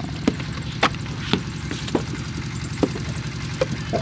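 Wet clay being slapped and knocked into brick moulds by hand: sharp slaps and knocks about every half second, over the steady low hum of an engine running.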